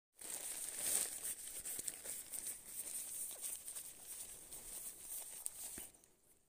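Fabric stuff sack crinkling and rustling as it is handled and packed into a backpack by hand, with small irregular crackles; it dies down near the end.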